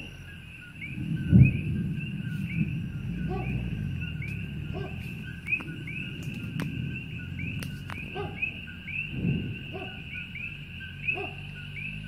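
A low, deep boom from the erupting Kīlauea volcano about a second and a half in, the loudest sound, with a weaker low rumble near nine seconds. Dogs bark in the distance over a steady chorus of night chirping.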